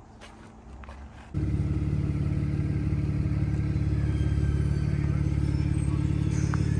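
After a quiet first second, the BMW 335i's N54 twin-turbo straight-six engine cuts in suddenly and runs with a steady low drone.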